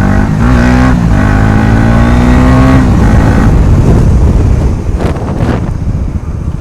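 KTM Duke motorcycle engine running with its exhaust silencer removed, revving under acceleration: the pitch climbs steadily for about two seconds, then drops about three seconds in as the throttle is let off and the sound gets quieter.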